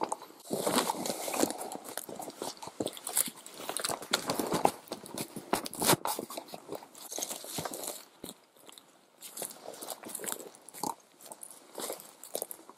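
Footsteps crunching through dry brush and logging slash: an irregular run of crackles and twig snaps, louder in the first couple of seconds.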